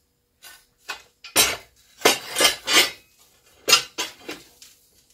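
Metal objects clanking and clattering against each other in a run of sharp knocks, loudest around the middle.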